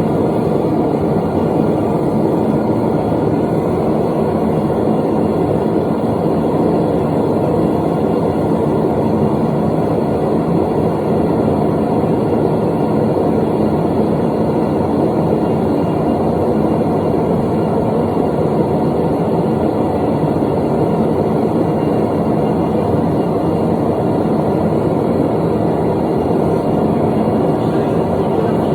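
A forge running with a steady, unbroken rushing noise, heavy in the low and middle range, with no hammer strikes.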